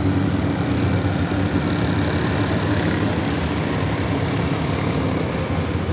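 V8 engine of a modified pulling tractor idling steadily at the starting line.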